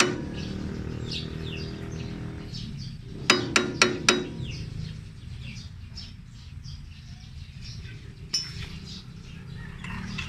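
A hammer striking the metal blade-drive parts of a Yanmar AW70V reaper: four quick ringing taps about three and a half seconds in, and one duller knock near the end. Small birds chirp throughout.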